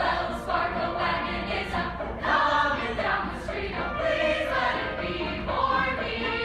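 A cast of young voices singing together as a chorus, a rehearsal run of a stage musical number.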